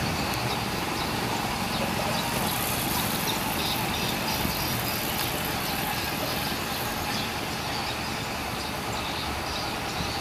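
Steady traffic noise of heavy log-laden trucks running and idling in a queue, a blend of diesel engine rumble and road noise with no single event standing out.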